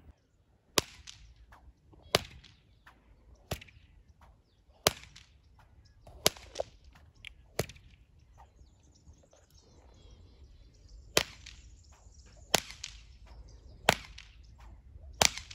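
Sharp slaps of a rider's training stick, about ten, evenly paced a little over a second apart with a pause of a few seconds midway. A faint, steady high-pitched whine sits under the later slaps.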